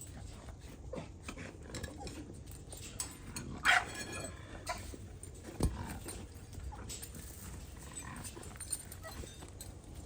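American Bully dog giving a short whine a little under four seconds in, amid scattered light knocks and clicks.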